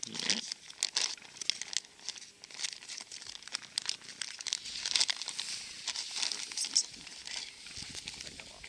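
Clear plastic food bag crinkling as it is handled and squeezed: a dense, irregular run of sharp crackles.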